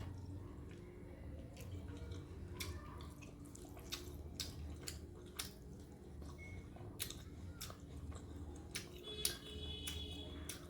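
Close-miked eating of rice and dal: wet chewing and lip smacks with scattered sharp mouth clicks, over a low steady hum.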